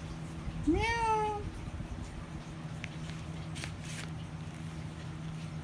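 A single imitated cat's meow in a high voice, about a second in, rising in pitch and then held briefly. It is a "meow" said for the cat picture.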